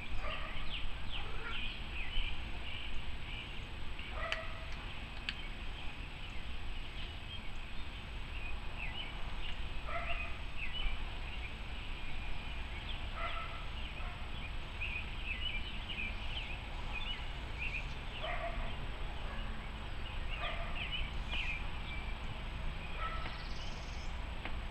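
Outdoor birds chirping in quick short notes, with a short pitched call repeated every few seconds, over a steady low rumble.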